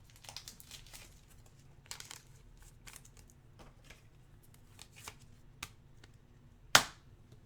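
Trading cards being handled on a table: faint, scattered clicks and rustles of cards sliding and being set down, with one sharper, louder click near the end.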